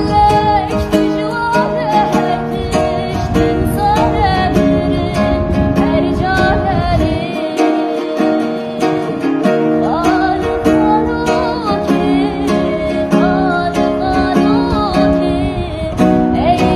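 A woman singing a melody with sliding ornaments while strumming chords on an acoustic guitar. The guitar's low notes drop out for a few seconds in the middle.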